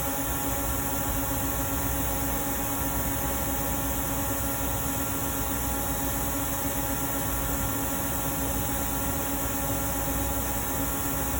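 Steady electrical hum with hiss, holding several fixed tones that do not change.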